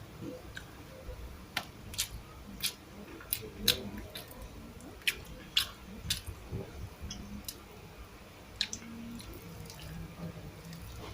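Someone eating a meal of rice and canned sardines: about a dozen sharp, irregular clicks and taps, most in the first nine seconds, with quiet chewing and mouth sounds between them.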